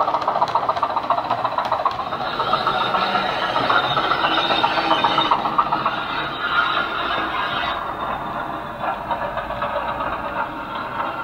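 A model Class 205 'Thumper' diesel-electric unit's DCC sound decoder plays the recorded running sound of its English Electric diesel engine through a small speaker. The model's wheels rattle over the track alongside it. The sound eases off somewhat about eight seconds in.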